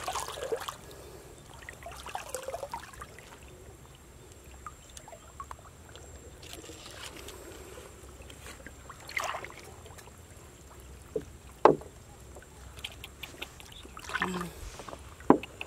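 Pond water sloshing and swishing in short bursts as a wader moves through it and sweeps his hands through the shallows. Two sharp short splashes or knocks come in the second half, the first the loudest.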